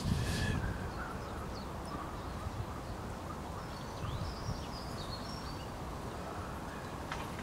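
Outdoor ambience with a steady low rumble and a bird chirping a few times about four seconds in.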